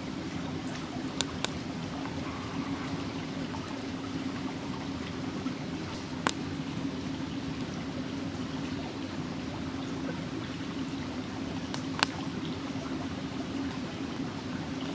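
Steady sound of running water, with a few sharp crackles from the wood campfire, the loudest one late on.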